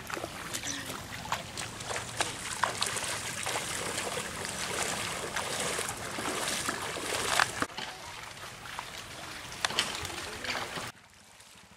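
Footsteps wading through shallow floodwater, with repeated splashes and sloshing over a steady wash of water noise. The sound drops off abruptly near the end.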